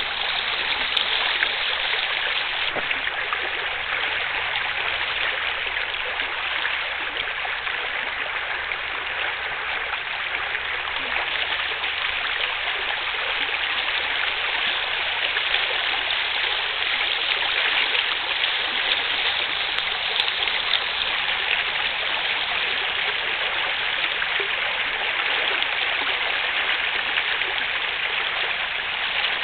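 Choppy open water lapping and splashing: a steady, even rushing with no break.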